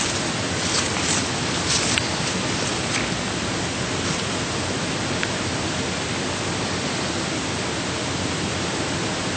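Steady hiss of room tone and recording noise during a hushed silence, with a few faint clicks and rustles in the first few seconds.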